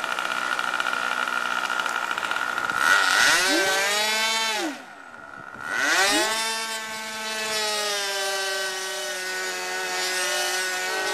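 RC airplane's nitro glow engine running together with its two electric ducted fans during a ground run-up. The pitch rises about three seconds in, falls away to a much quieter low throttle around five seconds, then rises again and holds steady.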